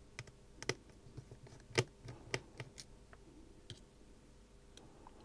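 Light, irregular clicks of tiny screws and a precision screwdriver tip being set down on a magnetic screw mat, about eight small ticks spread over a few seconds.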